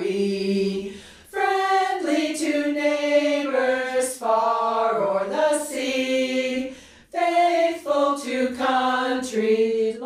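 Five women singing a cappella together in harmony, holding sung notes. They break off briefly for breath about a second in and again about seven seconds in.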